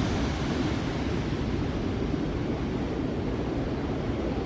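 Steady noise of surf breaking and washing on an open, wild ocean beach, mixed with wind on the microphone.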